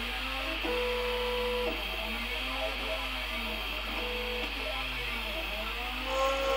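Prusa i3 MK2 3D printer running a print: its stepper motors whine in repeated rising and falling pitch sweeps as the print head traces curved outlines, holding steady tones during straighter moves. Under them is a steady hiss from the print head's fans.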